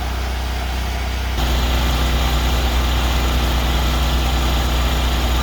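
Ridgid 4.5-gallon air compressor running with a steady hum; about a second and a half in, the Vortex air cleaning gun is triggered and a loud hiss of compressed air blowing out between car seats joins it.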